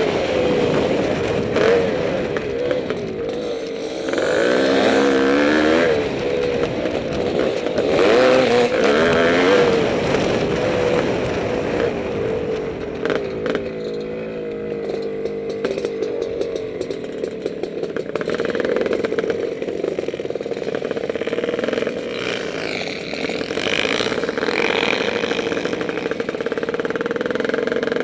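Yamaha IT490 two-stroke single-cylinder dirt bike engine, heard from the bike, running under changing throttle: its pitch rises and falls again and again, and it eases off to a lower, quieter run for a while midway.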